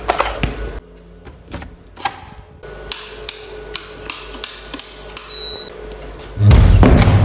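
Footsteps and a run of sharp clicks as a row of wall light switches is pressed, with a brief high beep about five and a half seconds in. Near the end an interior door is pushed open with a loud rumbling rush lasting about a second.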